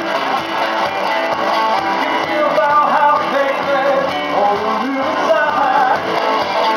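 Live blues-rock band playing: electric guitar over bass guitar and electric keyboard.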